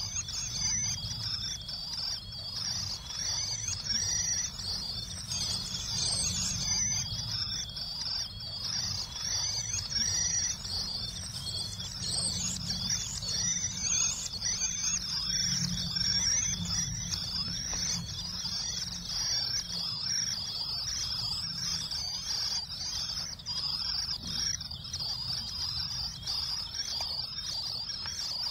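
Common swift nestlings in a nest box peeping constantly: a thin, high chatter, much of it coming from the young in the neighbouring box. A low dull rumble runs underneath.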